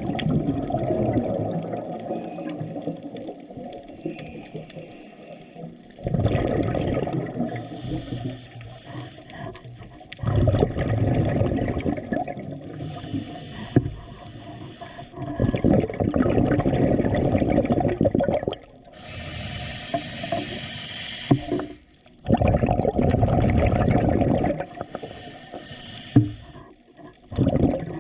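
Muffled water sloshing and splashing in surges every few seconds, with a brief brighter hiss about two-thirds of the way through.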